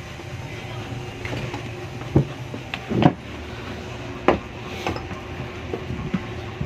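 A few sharp knocks and clacks of parts and tools being handled on a workbench, about two, three and four seconds in, over a steady low hum.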